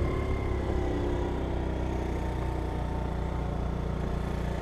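Small 50cc scooter engine running steadily at low revs, its tone settling slightly lower.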